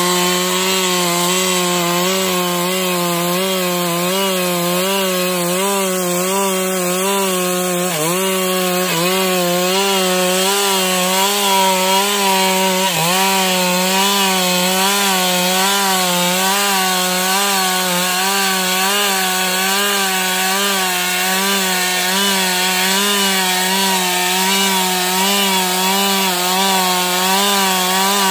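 Stihl MS 382 two-stroke chainsaw running at full throttle, ripping lengthwise through a jabon log. The engine note holds steady under load with a slight waver, and it dips briefly twice, about a third of the way in and again a few seconds later.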